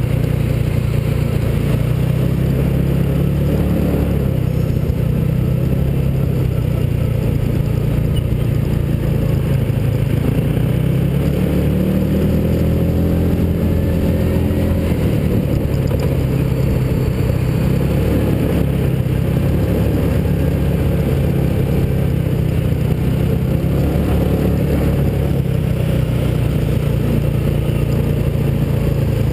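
Small engine of a mini hotrod running steadily as it drives, heard close from on board the car, its pitch rising and falling briefly about halfway through.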